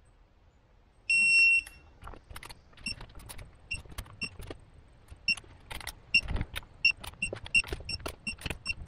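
Green digital torque wrench beeping as it tightens gearbox housing bolts. There is one long beep about a second in, then short high beeps that come faster and faster, up to three or four a second, mixed with the clicking of its ratchet.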